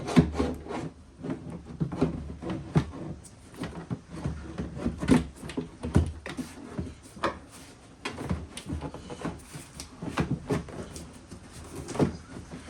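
A part being worked into the cramped engine bay of a Kawasaki JS550 jet ski: irregular knocks, clunks and scrapes as it bumps against the hull and the engine.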